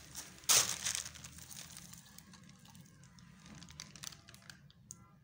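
Thin plastic grow bags full of soil crinkling and rustling as they are handled, loudest about half a second in, then softer scattered rustles and clicks.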